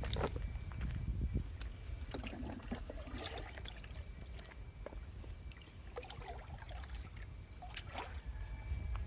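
Water trickling and splashing as it is handled, with scattered small clicks and knocks.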